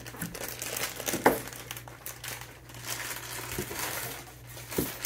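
Plastic packaging crinkling and rustling as pet products are handled in a cardboard box, with a sharp knock a little over a second in and a couple of softer knocks later.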